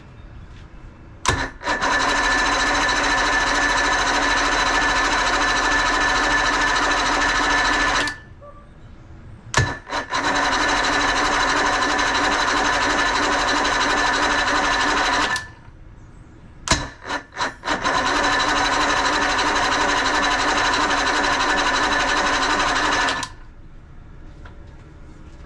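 1976 Johnson 135 hp outboard's electric starter cranking the engine three times, about six to seven seconds each, each crank starting with a sharp click and cutting off suddenly. The motor does not catch.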